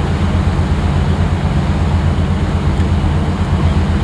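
A ship under way: a steady low rumble with an even haze of noise above it.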